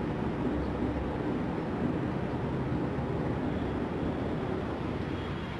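Steady low background hum of the room.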